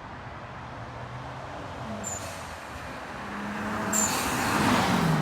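BMW 335i with its N54 twin-turbo straight-six driving up and past, getting louder over the last couple of seconds with the engine note dropping in pitch near the end. Two brief sharp high sounds, about two and four seconds in, stand out above the engine.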